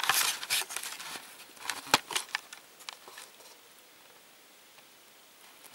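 Rustling and scuffing handling noise as the camera is moved, with a sharp click about two seconds in; the rustling dies away to a faint steady hiss.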